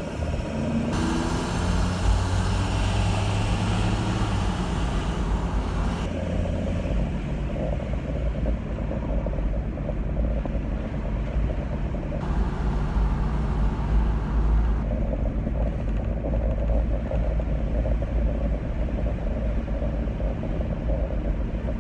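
Car engine and road noise heard from inside the cabin while driving: a steady low rumble with a rising hum between about one and four seconds in, and a louder rushing hiss twice.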